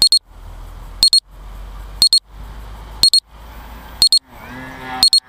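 Electronic beeper sounding a loud, high double beep about once a second, the pattern of an RC low-battery alarm warning that the flight battery is running down.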